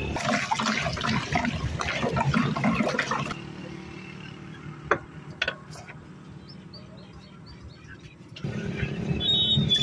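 Powder pouring from a plastic bag into a plastic bucket, a dense rustling hiss for about three seconds. Then it goes quieter with a few sharp clicks, and a bird chirps briefly near the end.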